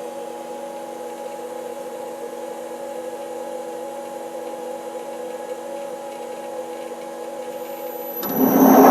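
CNC lathe humming steadily while idle; about eight seconds in, its spindle starts up and a much louder whir with a high whine rises as it begins another contoured facing pass on the cylinder head.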